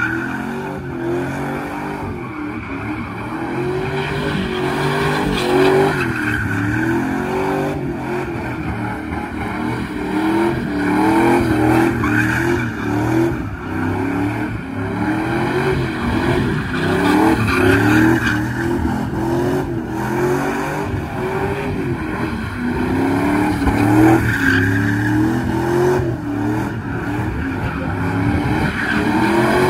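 Pickup truck doing a burnout in circles: the engine revs rise and fall again and again while the rear tires spin and squeal on the pavement.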